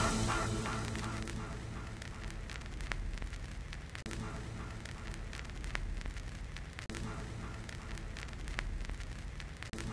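Background music fading out over the first second or two, then a low rumble and hiss of wind on a camera microphone, with scattered crackles and clicks.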